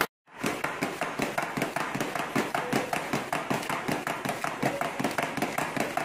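Hand stamp being struck rapidly onto pages of a paper stack on a glass-topped desk: a fast, even run of taps, about six or seven a second, starting a moment in.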